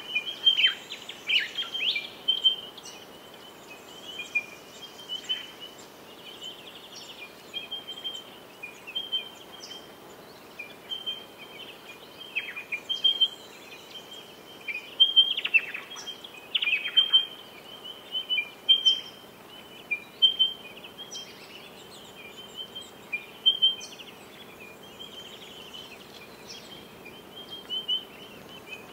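Small birds chirping over and over at the same pitch, with a few quick calls that fall steeply in pitch near the start and again about halfway through, over a faint steady hum.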